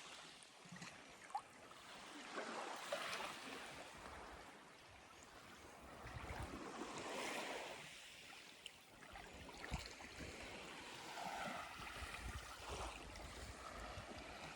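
Small, calm sea waves washing on the shore, quiet and rising and falling in slow swells.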